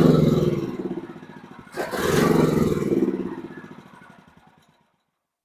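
Titan Industrial generator's small gasoline engine surging twice as it runs the last of the gas out of its carburetor, then fading out.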